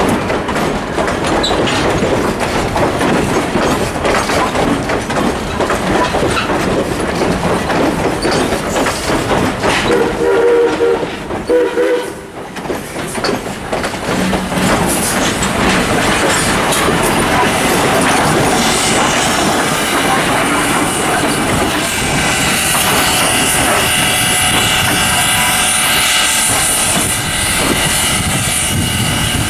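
Steam-hauled passenger coaches rolling close past, wheels clicking and rattling over the rail joints. About ten seconds in, the steam locomotive (CNJ 113, lettered as 115) sounds a short chime whistle of under two seconds. From about two-thirds in, the sound turns steadier, with several held tones over it as the locomotive works.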